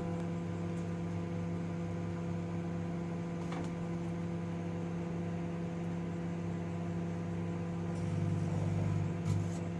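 Microwave oven running: a steady hum from the magnetron and fan, growing a little louder about eight seconds in, with a couple of faint clicks.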